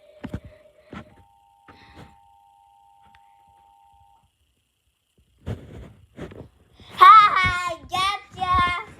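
A steady single tone fades out about a second in, then an Emergency Alert System attention signal, two steady tones sounding together, plays for about three seconds and cuts off. Near the end, after a few clicks, a child's high, wavering voice is the loudest sound.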